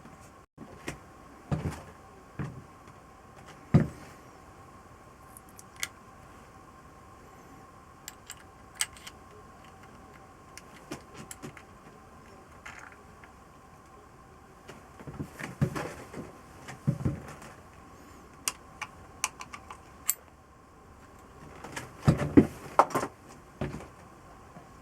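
Metal engine parts and hand tools clinking and knocking in irregular clusters during hand work on a motorcycle engine, over a faint steady hum.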